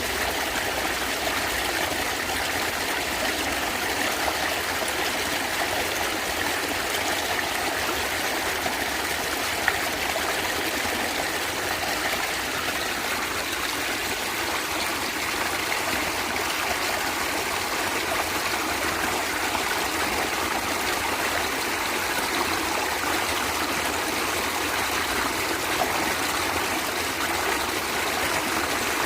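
A natural stream gurgling and trickling, a steady even rush of flowing water.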